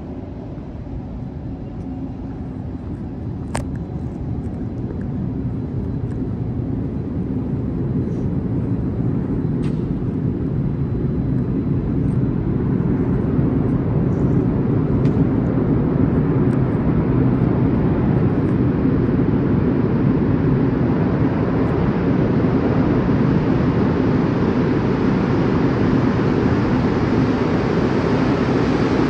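A Montreal Metro rubber-tyred train approaching through the tunnel, not yet in the station: a low rumble that builds steadily for about fifteen seconds and then holds loud. A faint click comes about three and a half seconds in.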